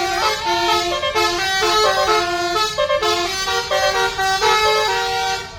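Basuri 'telolet' multi-tone musical air horn playing a tune: several horn notes sound together and step from pitch to pitch without a break.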